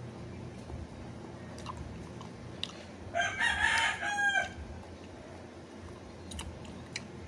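A rooster crowing once, a single call of about a second and a half that starts about three seconds in and falls away at the end.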